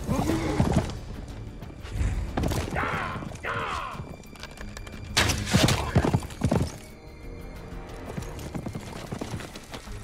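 Horses whinnying and galloping hooves over an orchestral film score, with a cluster of sharp, loud hits about five to six and a half seconds in.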